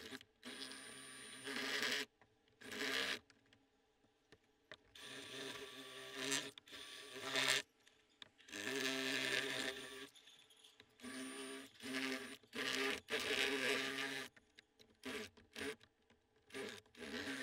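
Cordless drill running in repeated stop-start bursts, a buzzing whine with a scraping edge as the bit bores through the plastic lid of a rooftop cargo case; some bursts are short blips and others run for a second or two.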